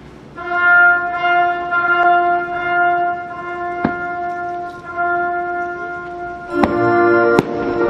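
Show music: a held, steady chord that gives way to a fuller, louder chord about two-thirds of the way through, with a few sharp cracks over it.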